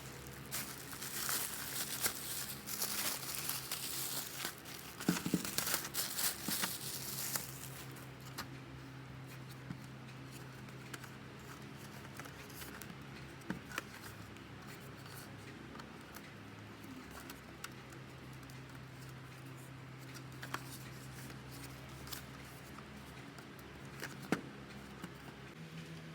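Plastic packaging crinkling and tearing as it is unwrapped, busiest for the first several seconds, then quieter with scattered small clicks and knocks.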